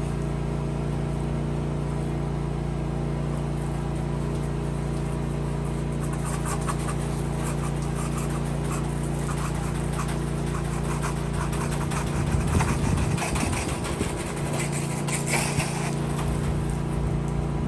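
Steady drone of a gas pressure washer's engine running. From about six seconds in, a crackling hiss of spraying water joins it, busiest around twelve to sixteen seconds.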